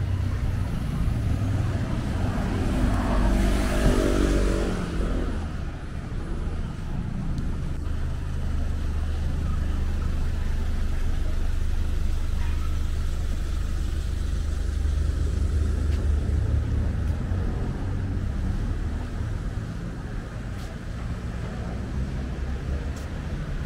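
City street traffic: a steady low rumble of vehicle engines, with one vehicle passing close by about two to five seconds in.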